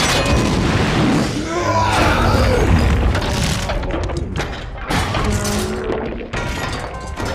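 Film soundtrack of an action scene: booming explosions and the crashing, shattering debris of giant robots being blasted apart, over a music score. Sudden impacts land right at the start and again about five and six seconds in.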